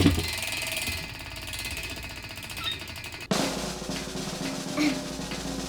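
Snare drum roll sound effect, cutting in suddenly and changing abruptly about three seconds in, laid over a prize wheel spinning.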